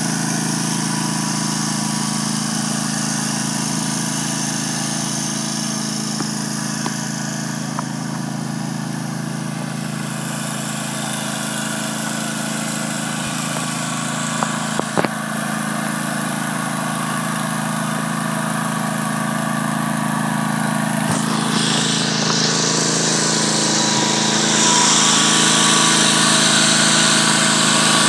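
Cub Cadet LT1050 riding mower's Kohler Courage 23 engine running steadily. It grows louder and hissier near the end, with a few sharp clicks about halfway through.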